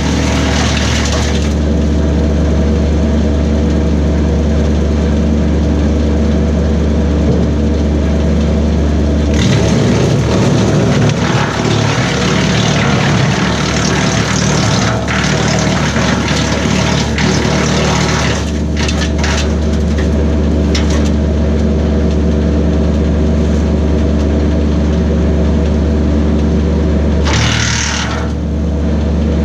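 Kubota B2601 compact tractor's three-cylinder diesel running steadily, driving a BECO 4-inch PTO wood chipper as cherry branches are fed through and chipped. Loud stretches of chipping come at the start, for several seconds from about a third of the way in, with the engine note wavering under the load, and again briefly twice later.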